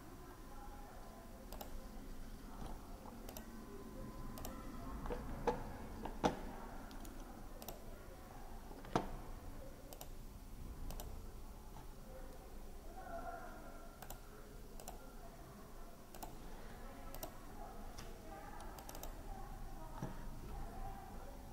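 Scattered clicks of a computer mouse and keyboard, sharp single ticks spread irregularly throughout, with three louder ones in the first half, over faint room noise.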